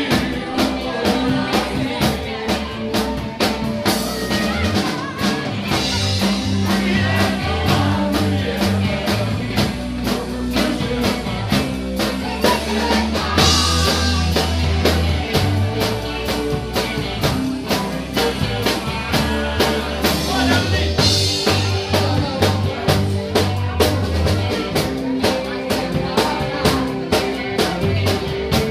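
Live rock band playing a blues-rock number: electric guitar, bass guitar and a drum kit, with a steady drum beat throughout.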